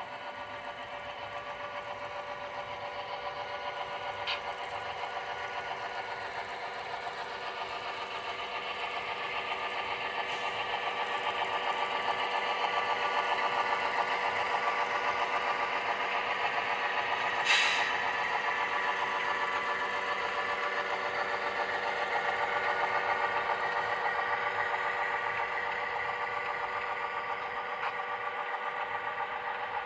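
Model freight train running past: a steady whirring hum of the locomotive motors with fast clicking from wheels on the track. It swells as the Great Northern F-unit diesel helpers go by and then fades, with one sharp click about two-thirds of the way through.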